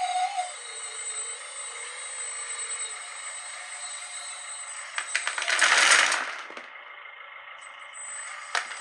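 Radio-controlled construction models at work: a steady high electric whine, and about five seconds in a loud rattling rush lasting about a second and a half.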